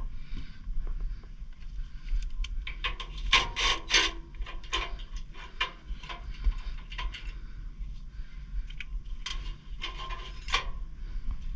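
Irregular rubbing, scraping and knocking, as of things being handled, over a steady low hum.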